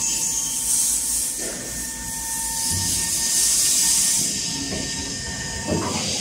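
Hydraulic dock leveler's electric pump unit running with a steady whine and hiss as it raises the deck and swings out the lip. The hiss falls away about four seconds in, and the pump stops near the end with a sharp knock.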